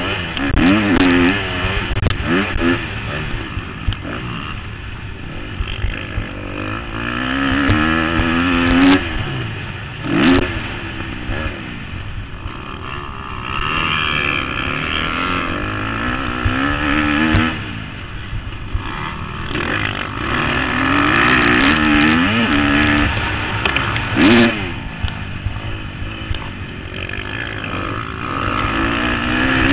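2013 KTM 250 SX-F four-stroke single-cylinder motocross engine, heard from a helmet-mounted camera. It revs up hard and drops back again and again as the rider accelerates, shifts and rolls off the throttle.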